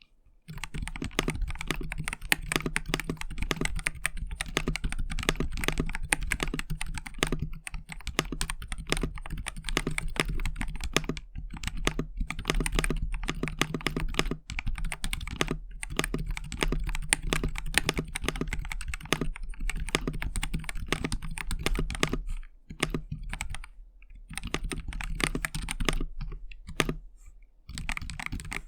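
Fast typing on a mechanical keyboard with Holy Panda tactile switches in a KBDFans KBD67 Lite: a dense run of keystrokes with a few short pauses.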